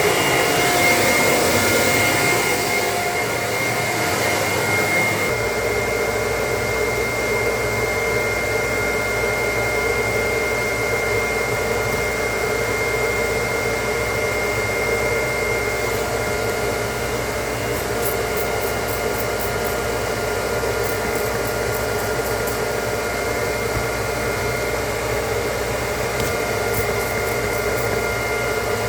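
Steady motor-driven whirring with an airy hiss and a few steady whining tones. A brighter hiss fades out about three seconds in, and faint quick ticking comes and goes in the second half.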